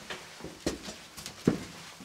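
Footsteps walking across a hard floor: a handful of uneven steps, each a short thud with a little scuffing.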